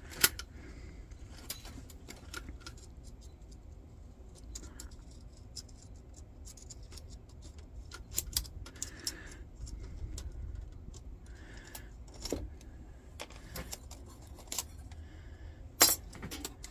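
Scattered light metallic clicks, taps and brief scrapes as the thin steel parts of a folding candle lantern are handled, with a sharper click just after the start and another near the end.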